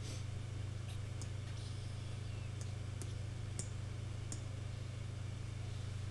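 Computer mouse clicking on an on-screen graphing-calculator keypad: several light, sharp clicks spaced irregularly, over a steady low hum.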